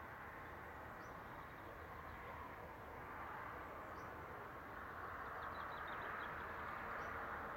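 A distant convoy of SNCF diesel locomotives, led by BB 67200-class engines, is heard approaching faintly, its noise growing slowly louder. Birds chirp over it, with a quick run of chirps about two thirds of the way in.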